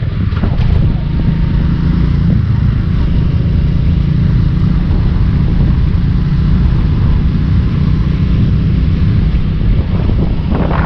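Motorcycle engine running steadily at cruising speed, with wind and road noise on the rider's microphone.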